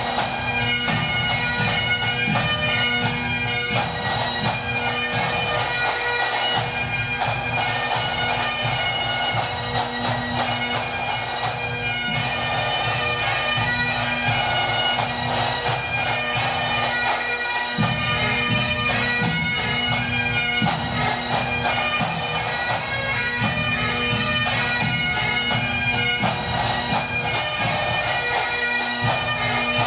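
Pipe band playing: Highland bagpipes sounding a tune over their steady drones, with drums beating time.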